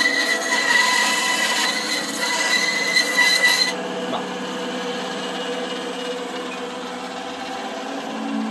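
Benchtop band saw cutting a wooden spoon blank, a steady whining cut noise. A little under four seconds in the cutting stops and the saw runs on more quietly with a steady hum.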